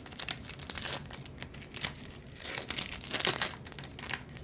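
Wrapper of a baseball card pack crinkling and being torn open, in irregular rustles and crackles.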